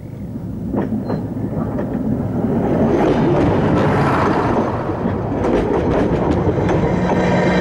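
Passenger train rolling past at rail level, its wheels clattering over a bolted rail joint right beside the microphone. The rumble builds over the first few seconds, then stays loud with rapid clicks and a steady low hum underneath.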